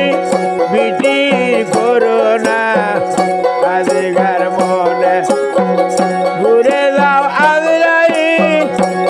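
Bengali baul folk music: a plucked dotara plays the melody and a small hand-held frame drum keeps the beat. A man's voice sings over them, most clearly near the end.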